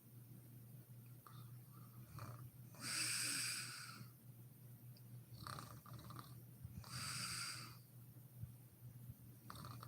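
A sleeping woman's snoring breaths: two strong, hissy exhales about three and seven seconds in, with fainter breaths between.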